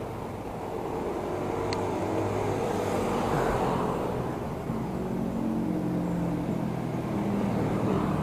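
Motor vehicle engine passing on the road, its pitch shifting and sliding lower, over steady wind and road noise from a bicycle-mounted camera. A single light click about two seconds in.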